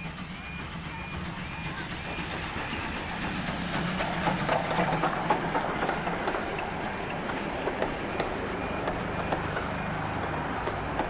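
Steam-hauled passenger train, a Polish 0-8-0T Slask tank engine with its coaches, passing close by, with the wheels clattering over the rail joints, loudest in the middle as the coaches roll past. A short high beep repeats about twice a second at the start and again near the end.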